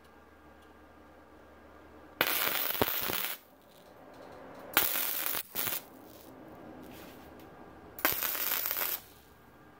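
MIG welder tacking a new steel section. The arc crackles and sizzles in three separate bursts of about a second each, with a brief extra blip just after the second.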